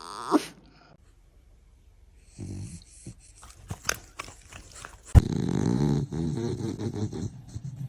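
A dog making noises. After a short burst at the start and a sharp knock about five seconds in, it gives a loud, low, drawn-out vocalisation for about two seconds.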